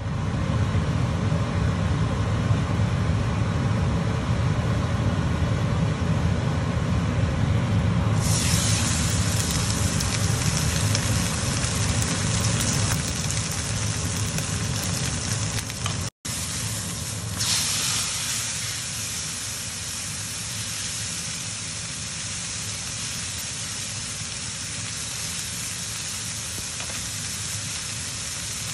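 Rib-eye steak sizzling as it sears in hot oil in a frying pan: a steady hiss that grows louder about eight seconds in. After a brief break midway, the sizzle carries on more quietly.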